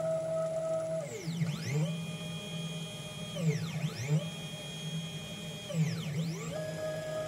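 Stepper motors of a DIY CNC drawing machine running: a pitched whine that holds steady, then sweeps down and back up three times as the axes slow and speed up again, over a steady low hum.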